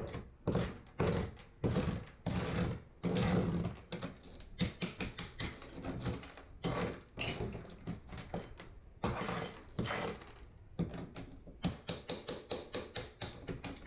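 Hammer striking a porcelain floor tile to break it up and chip it out: a long run of sharp knocks and cracks at uneven spacing, some coming in quick bursts.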